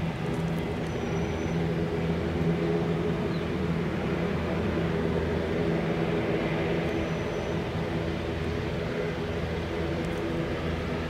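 Steady drone of airliner jet engines at taxi power, heard from afar as an even low hum.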